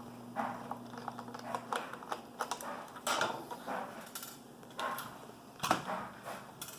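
Irregular small clicks, taps and scrapes of a screwdriver and hands working on the plastic housing of a JBL Horizon speaker while its screws are taken out.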